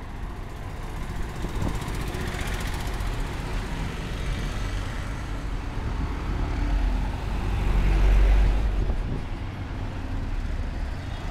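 Street traffic: cars and auto-rickshaws driving past on the road. Engine rumble swells to its loudest about eight seconds in as a lorry passes close, then falls back.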